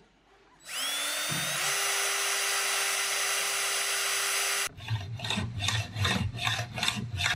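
Cordless DeWalt drill spinning up with a rising whine and running steadily for about four seconds as it bores into a wooden rifle stock. It stops abruptly, and a hand file then scrapes metal in even strokes, about three a second.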